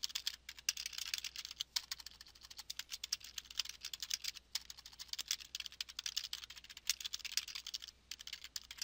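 Typing on a computer keyboard: a quick, irregular run of key clicks as a short message is typed.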